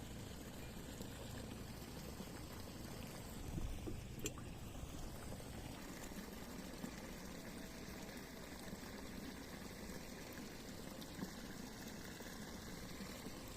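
Steady trickling and gurgling of a small stream's flowing water, with a few brief soft knocks about four seconds in.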